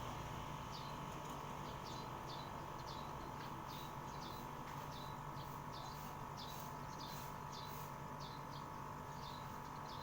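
A bird chirping over and over, short high chirps that slide down in pitch, about one or two a second, over a steady background hum.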